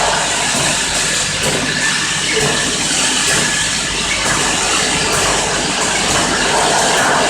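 4-nozzle piston pump filling and capping machine running: a steady, even mechanical noise with no let-up.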